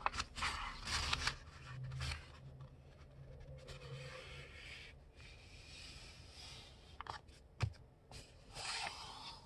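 A sheet of printer paper being folded diagonally by hand, rustling and rubbing as the fold is brought over and the crease is pressed flat with the fingers. The sound comes in several short bursts, with two sharp taps about seven seconds in.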